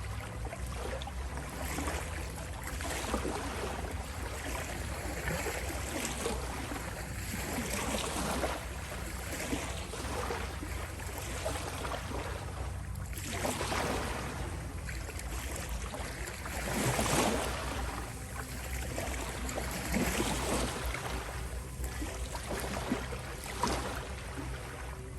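Ocean waves surging in and washing back, one swell every few seconds, over a steady low rumble. A faint steady 528 Hz tone sits underneath. The biggest wave comes about two-thirds of the way through.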